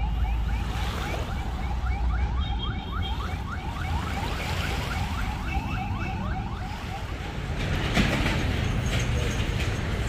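Wind buffeting the microphone on an open seafront, with a fast-repeating rising whistle-like tone in the background, about two to three a second, that stops about two-thirds of the way through. Scattered sharp ticks follow near the end.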